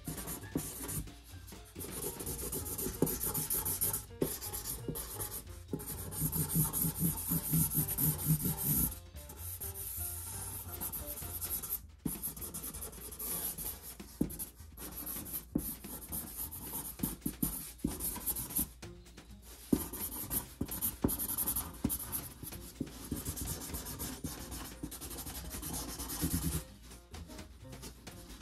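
Sharpie marker scribbling quick strokes over cardboard, a scratchy rubbing hiss that comes in runs broken by short pauses.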